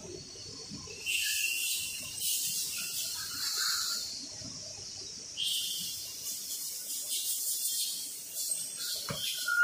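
Facial tissue packing machine running, with a hiss in two long stretches of about three seconds each, broken off for about a second between them.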